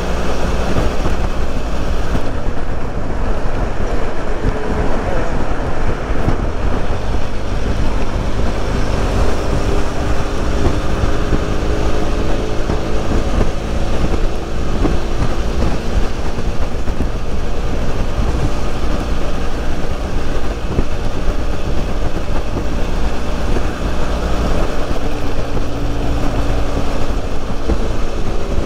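BMW F800 motorcycle's parallel-twin engine running at a steady cruise, its pitch drifting gently up and down with speed, under heavy wind rush on the microphone.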